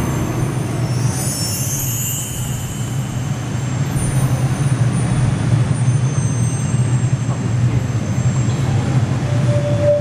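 Deep, steady rumble with a brief high hissing whoosh about a second in, a show sound effect played over loudspeakers.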